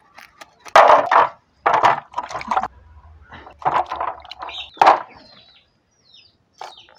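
Water splashing and sloshing in a steel basin as a freshly cleaned snakehead fish is washed by hand, in several short bursts with the loudest about a second in.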